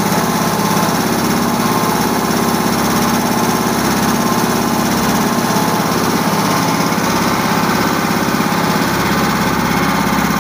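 Vehicle engine running steadily with a rapid, even pulse. Its exhaust is piped through a hose into the tubeless tyre to inflate it.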